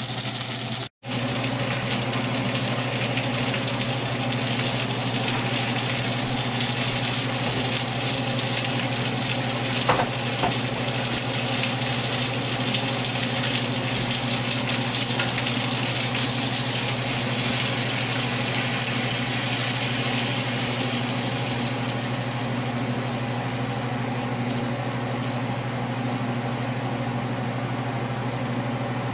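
Chicken wings frying in a stainless steel skillet on a gas range: a steady sizzle over a constant low hum, with a couple of light knocks about ten seconds in.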